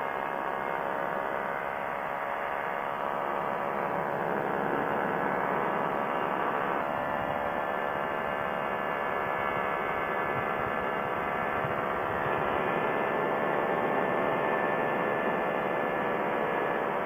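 Quicksilver ultralight's engine and propeller droning steadily in cruise flight, with wind rushing past the open airframe; the engine's pitch shifts slightly about seven seconds in.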